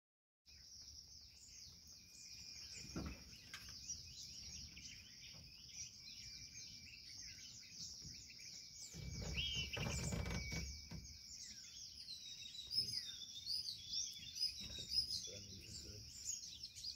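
Outdoor wildlife ambience: many birds chirping together over a steady high-pitched chorus, with a thin whistle held for several seconds. A low rumble comes up about nine seconds in.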